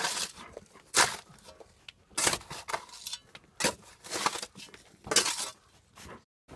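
Shovel digging by hand into stony ground: a series of crunching, scraping strokes, about one a second, with short pauses between.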